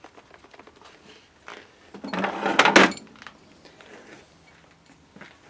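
Handling noise of hard objects: small clicks and taps, then a short, loud scraping rattle about two seconds in.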